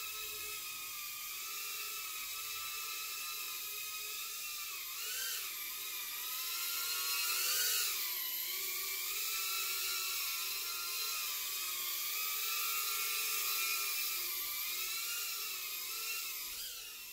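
EMAX TinyHawk micro quadcopter's tiny brushless motors and ducted propellers whining in flight, the pitch wavering up and down with the throttle and swelling about five and eight seconds in. The whine fades near the end.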